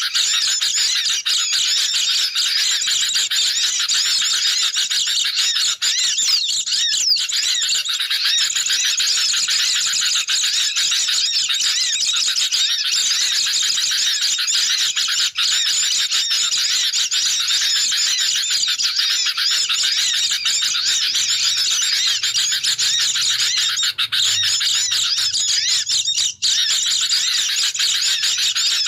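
Dense, continuous chattering calls of sooty-headed bulbuls mixed with the rapid high twittering of white-eyes, many birds overlapping at once. It is a bird-lure recording used to draw wild birds in.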